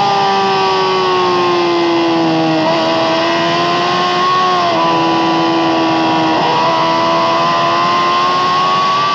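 Yamaha R6's inline-four sportbike engine with an Akrapovic exhaust, heard onboard at high revs on track: the note sinks slowly, then breaks briefly three times as gears change, with a steady rush of wind underneath.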